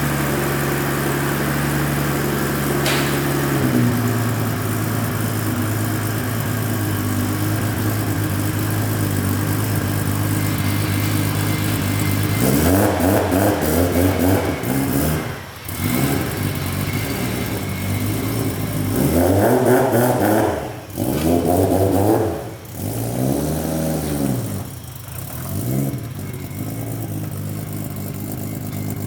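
Toyota Chaser JZX100's 1JZ straight-six engine running steadily, dropping to a lower pitch about four seconds in. From about halfway through it is revved up and let fall again several times, as the car is driven up onto a car trailer.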